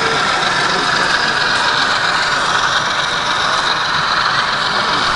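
Model freight train running past on a layout, heard under the steady din of a busy exhibition hall.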